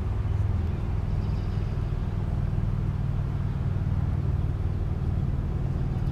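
A steady low, droning hum like a motor or engine running, with an even rushing noise over it.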